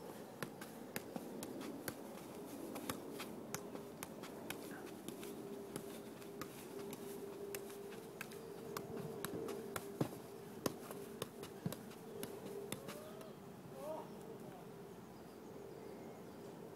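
A football being juggled: a run of short, dull ball touches off foot and thigh, about two or three a second, thinning out near the end, over a steady faint hum.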